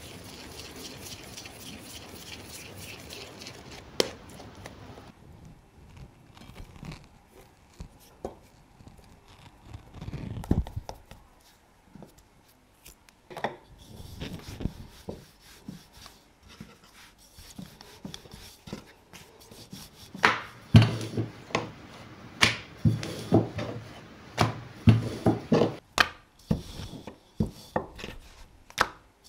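Wooden rolling pin rolling out bread dough on a wooden board: rubbing and rolling with repeated wood-on-wood knocks, coming quickly and loudest in the last third. It opens with a few seconds of steady soft hiss.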